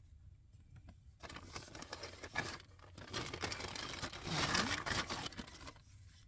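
Stickers being shuffled and sorted by hand: paper crinkling and rustling, starting about a second in, loudest near the middle and dying away shortly before the end.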